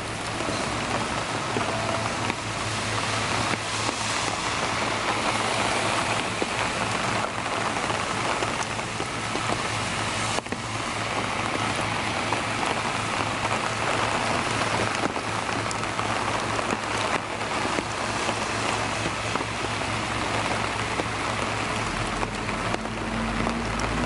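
Steady rain falling on wet pavement and a thick layer of fallen ginkgo leaves, an even hiss. Near the end a car on the wet street comes up, its engine note rising slowly.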